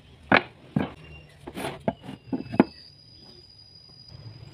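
Wooden boards and cut pieces being handled and set down on a wooden workbench: about six sharp wood-on-wood knocks in the first three seconds, the loudest about a third of a second in and near the end of that run.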